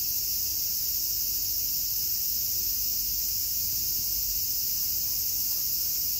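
Steady high-pitched chorus of summer cicadas, an even shrill hiss that never breaks, over a faint low rumble.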